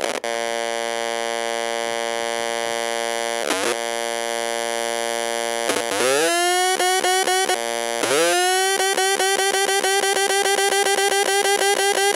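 Cheap Budweiser-branded mini amp-style wired speaker with a fried battery giving out chiptune-like electronic tones from its own amplifier, set off by an audio plug not pushed in right, which the uploader puts down to an overactive amplifier. A steady buzzy drone is broken by a quick swoop about three and a half seconds in. Rising swoops near six and eight seconds lead into a fast, pulsing warble.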